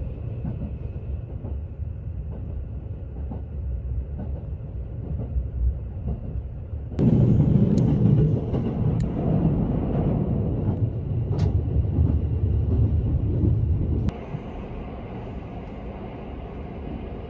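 Running noise of the JR West Haruka limited express heard from inside a passenger car: a steady low rumble of wheels on rail. About seven seconds in it suddenly gets much louder, and about seven seconds later it drops back just as abruptly.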